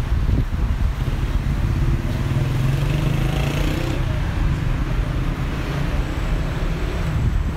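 Road traffic on a city street: a steady low rumble of passing car engines and tyres, with one vehicle passing close and louder from about two to four seconds in.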